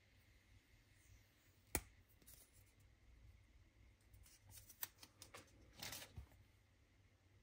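Faint handling noises as items are unboxed: a sharp click about two seconds in, then a scatter of small clicks and a brief rustle near the end.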